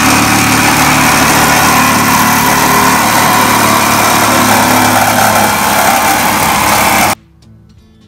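Corded reciprocating saw (Sawzall) with a metal-cutting blade cutting through the steel wall of an old heating-oil tank: loud and steady, starting suddenly and cutting off about seven seconds in.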